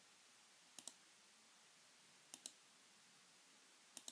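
Three faint computer mouse clicks about a second and a half apart, each a quick double click of press and release, advancing slides over near silence.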